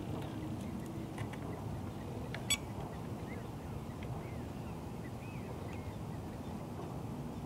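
Faint bird calls, a string of short arching chirps from about three seconds in, over a steady low rumble of wind on the microphone. One sharp click about two and a half seconds in.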